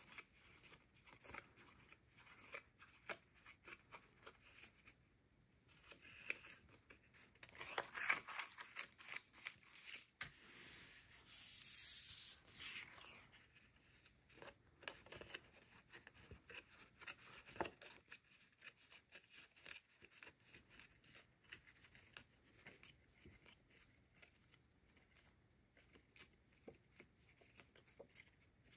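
Paper being handled and folded along score lines: faint rustles and small crisp clicks throughout, with a louder stretch of paper rubbing and crinkling from about eight to thirteen seconds in.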